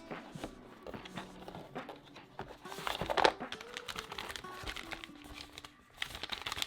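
Packaging being handled: crinkling and rustling with scattered clicks and taps, loudest about three seconds in, over background music.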